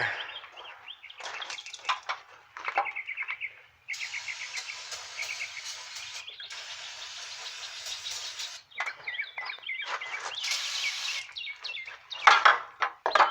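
Aerosol carburetor cleaner spraying into a dirty throttle body: two hisses of about two seconds each with a short break between them, then a shorter one. Birds chirp throughout.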